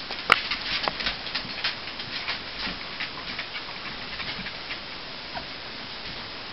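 Six-week-old Pembroke Welsh corgi puppies scrambling about, their claws clicking and pattering on a hardwood floor. The clicks come thickest in the first three seconds, with one sharp, loud click about a third of a second in.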